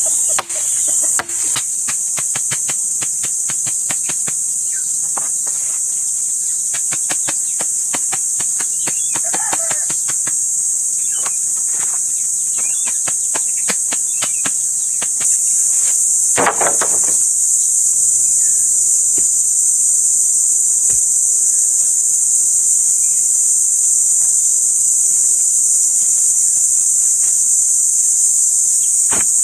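Steady, loud, high-pitched drone of crickets or cicadas. Through roughly the first half, a run of sharp knocks like hammering.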